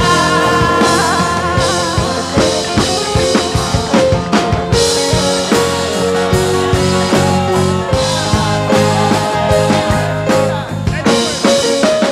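Gospel band playing an instrumental passage between sung lines: drum kit strokes over held melodic notes and a steady bass.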